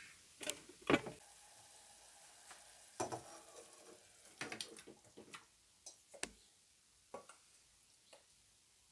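Cooking utensil clinking and scraping against a pan as food is stirred, a dozen short knocks spread over the seconds, with a faint sizzle under the first few.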